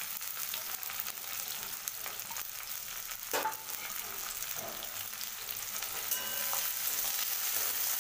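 Sliced onion and green chilli sizzling in hot mustard oil in a kadai, a steady hiss, with a single sharp tap a little over three seconds in.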